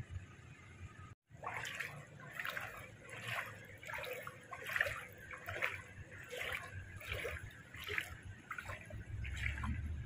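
Floodwater trickling and lapping in a quick, irregular run of small splashes and gurgles, starting after a brief dropout about a second in.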